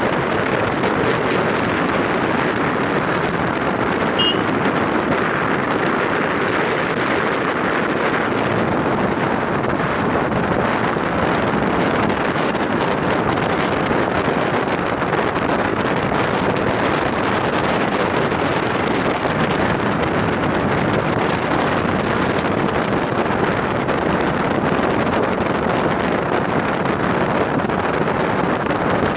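Steady wind rushing over the microphone of a vehicle travelling along a road, with the vehicle's running noise underneath.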